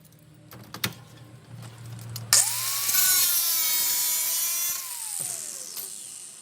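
A couple of light knocks, then a power tool switches on about two seconds in and runs with a steady whine and a harsh hiss for a couple of seconds before winding down, its pitch falling as the motor coasts to a stop.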